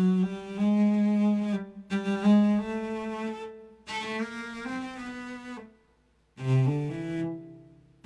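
Erhu-voiced keyboard synthesizer playing a slow bowing exercise of two notes per bow: short phrases of a few stepped notes, with brief breaks between them, the last fading out near the end.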